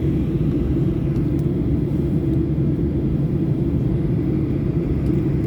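Steady low rumble of a Boeing 737 in flight, its engines and airflow heard from inside the passenger cabin.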